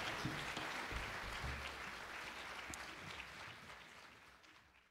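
Audience applauding, the clapping fading steadily and cutting off near the end.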